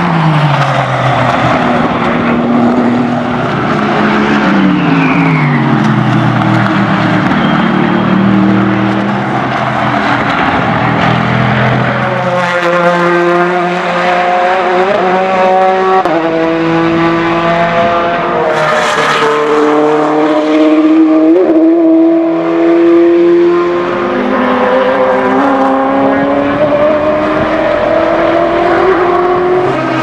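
Several race car engines working through a corner. The revs fall away under braking and downshifts, then rise again in steps as the cars accelerate out and change up through the gears, with the engines overlapping as cars follow one another.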